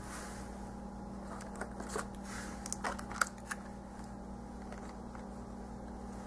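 Light rustling and a few sharp clicks from stationery and plastic packaging being handled, a handful in the first half, over a steady low hum.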